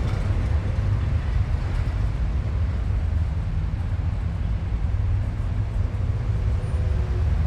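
City traffic ambience with a heavy, deep sub-bass rumble underneath: a steady wash of passing vehicles with no sudden events.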